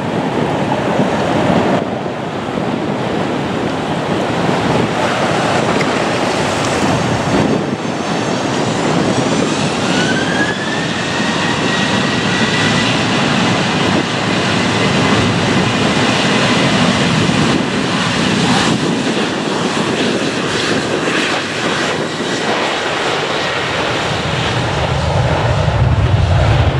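Airliner engines running with a heavy noisy rush; a high whine rises about ten seconds in, then holds steady until it fades near the end.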